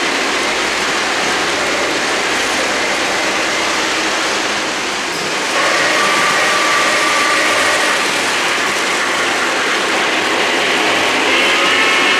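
O-gauge model trains rolling on three-rail track: a steady clatter and hiss of small wheels and motors. It gets a little louder about five and a half seconds in, where steady high tones join it, and another cluster of high tones comes near the end.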